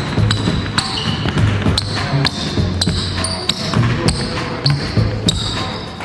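A basketball bouncing repeatedly on a hard court, with sneakers squeaking.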